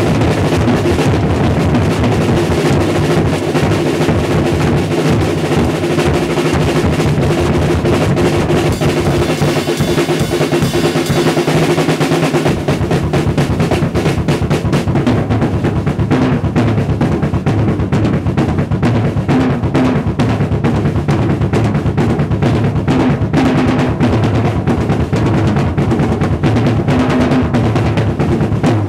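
Acoustic drum kit played fast and hard with sticks in a continuous solo: dense strokes on snare, toms and bass drum with cymbals, without a pause, breaking off right at the end.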